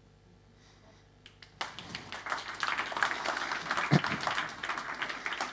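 Audience applauding, starting about a second and a half in and continuing, with a single low thump about four seconds in.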